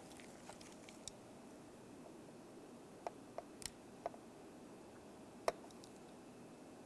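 Faint, scattered clicks and light ticks as a plastic window deflector is handled and its tape corners are picked up with a utility knife. There are about five of them, the sharpest about five and a half seconds in.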